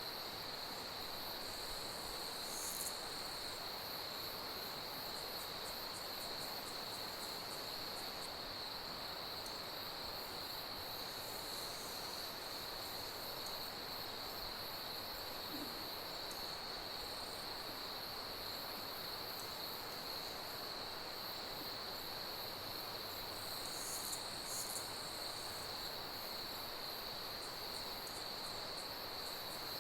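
Crickets chirping in a steady, unbroken high-pitched chorus, with fainter, higher insect buzzing over it.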